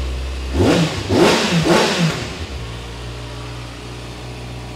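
2024 Kawasaki ZX-6R's 636 cc inline-four engine idling, then revved in three quick throttle blips about half a second in, each rising and falling in pitch, before settling back to idle.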